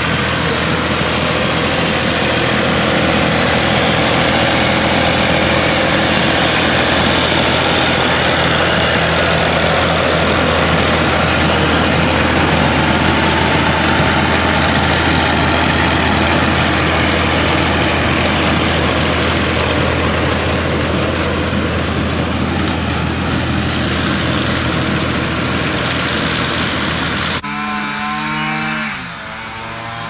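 Old farm tractor's engine running steadily as it tows a mower across a field, then cut off abruptly near the end.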